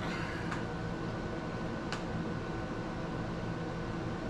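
Steady room hum like a fan or appliance running, with a single light click about two seconds in.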